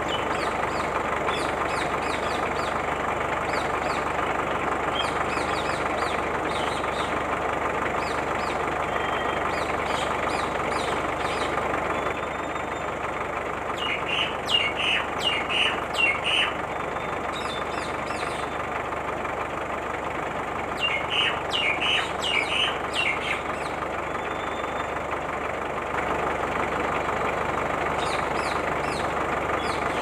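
Remote-control toy road roller running steadily over gravel, its running noise dropping somewhat for a stretch in the middle. Birds chirp throughout, most clearly in two short spells midway.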